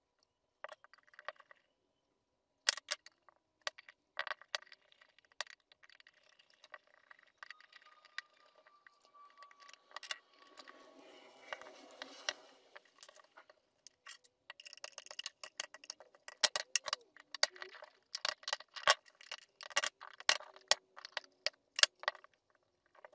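Small metal parts and hand tools clicking and clinking against the metal housing of a Bosch warm-up regulator as it is worked on by hand. The clicks come irregularly and grow denser in the second half, with a short stretch of rustling about ten seconds in.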